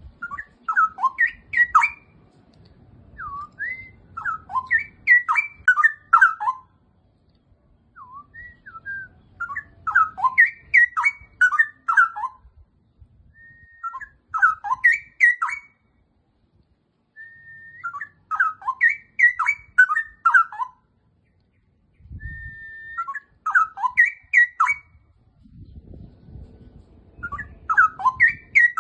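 Straw-headed bulbul (cucak rowo) singing: loud, bubbling, whistled song phrases of a few seconds each, repeated about every four seconds with short pauses between.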